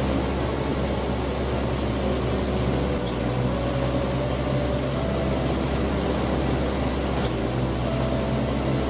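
A steady low drone: an even hiss over a deep hum, with a few faint held tones drifting in and out.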